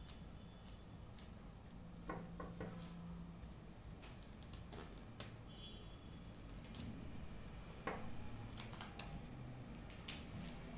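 Faint, scattered clicks and rustles of hands handling paper stickers and a plastic-covered sheet, with a few sharper ticks.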